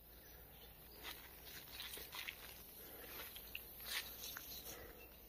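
Faint, irregular footsteps and rustling of someone walking over the ground, with a few soft crackles.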